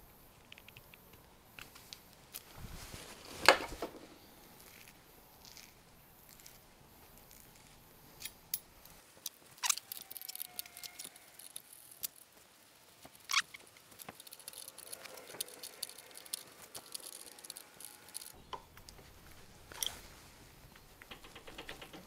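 Scattered clicks and knocks of hand tools and small metal parts being handled at a workbench vise while a battery cable and its brass clamp are worked on, with one louder knock about three and a half seconds in.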